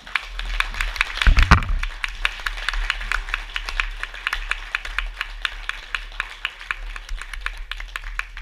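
Audience applauding, the dense clapping thinning to scattered claps near the end. A few loud thumps close to the microphone about a second and a half in.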